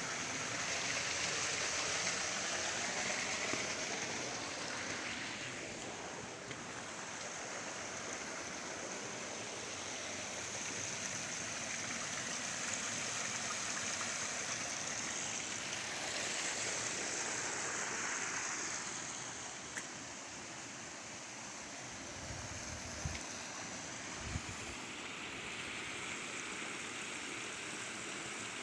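Water running in a stream: a steady rushing that swells and eases slowly. Two brief soft thumps come about 23 and 24 seconds in.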